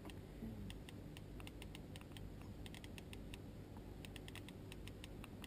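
Faint, rapid, irregular clicking from a fishing reel under load while a hooked wels catfish is played on a bent rod, over a low steady rumble.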